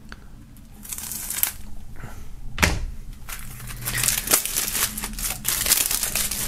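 Plastic shrink-wrap film being torn and peeled off a CD jewel case, crinkling and rustling. The crinkling grows denser and louder over the last three seconds. A single sharp click comes about two and a half seconds in.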